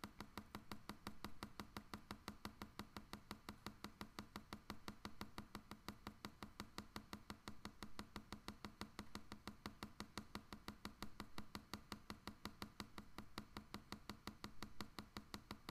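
Drawing pencil tapping dots onto paper while stippling: a fast, even run of faint taps, about five a second.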